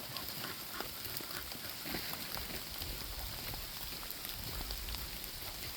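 Rain falling on woodland foliage: a steady hiss with scattered drops ticking throughout.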